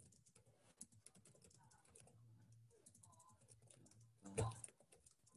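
Faint typing on a computer keyboard: a quick, uneven run of keystrokes, with one louder thump about four seconds in.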